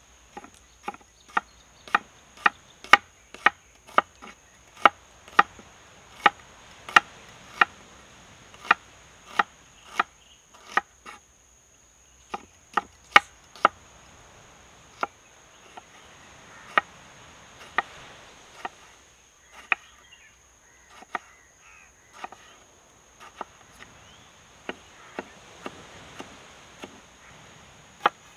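Broad-bladed kitchen knife slicing a red onion on a wooden chopping board: sharp knocks of the blade meeting the wood, about two a second, in runs broken by short pauses.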